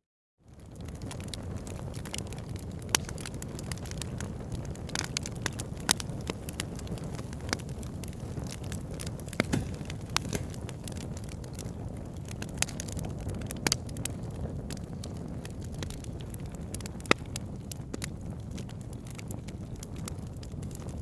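Wood campfire burning: a steady low rumble and hiss of flame with sharp crackles and pops scattered throughout, a few of them louder. It fades in from a moment of silence at the start.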